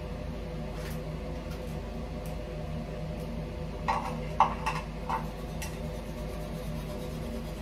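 A toothbrush and toothpaste tube being handled at a ceramic washbasin: four or five short clicks and taps about four to five seconds in, over a steady low hum.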